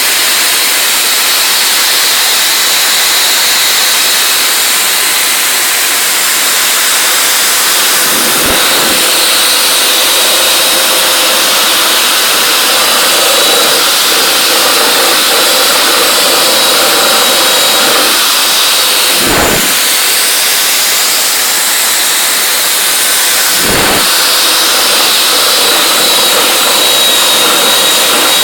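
Dryer vent cleaning equipment running steadily: a motor with a thin high whine over rushing air, with a few brief thumps.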